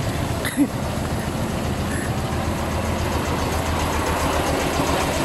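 Tractor engine running steadily with a fast, even beat while it plows a field.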